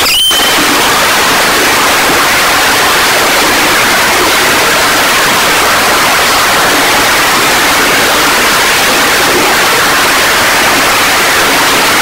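A steady, loud rushing hiss with no rhythm throughout, like falling water. Right at the start comes one short, high screech from a rainbow lorikeet.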